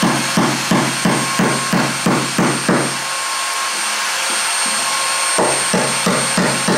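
Claw hammer striking the old pine safe chest in quick, even blows, about three a second, with a pause of about two and a half seconds midway. A steady background hum runs underneath.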